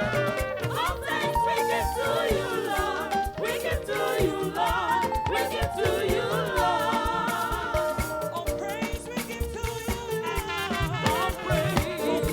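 Gospel music: singing with vibrato over instruments and a regular drum beat.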